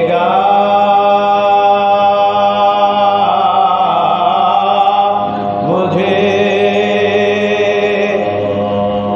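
Sozkhwani, the Shia mourning chant: voices sing a slow lament in long held, ornamented notes, moving to a new pitch every few seconds, over a steady low tone.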